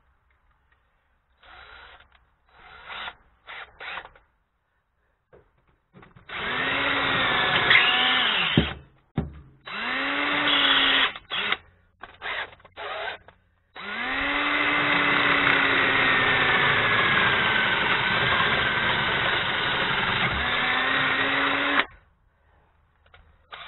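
Power drill boring through the steel chassis frame rail, enlarging a centred pilot hole with a larger bit. A few short trigger blips come first, then two runs of a couple of seconds each with more blips between, then one steady run of about eight seconds that cuts off suddenly.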